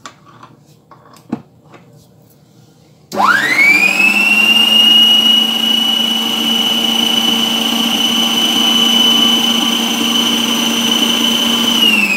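Electric stand mixer switched on about three seconds in: the motor whine climbs quickly to a steady high pitch and runs as the flat beater turns flour and oil in a steel bowl, then starts to wind down in falling pitch at the very end. A few faint clicks come before it starts.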